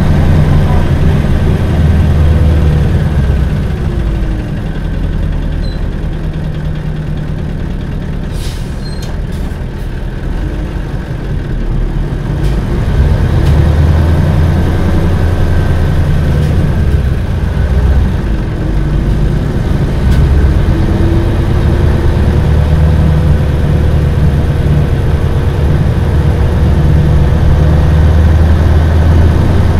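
Diesel engine of a 1997 Isuzu Cubic KC-LV380L city bus, heard from inside the cabin while under way. The engine eases off and goes quieter for several seconds, with a few sharp clicks and rattles, then pulls again about halfway through and runs steadily loud.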